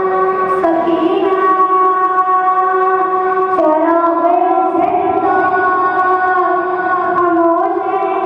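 A boy's voice singing a noha, a Shia mourning lament, in long drawn-out held notes that step to a new pitch three times.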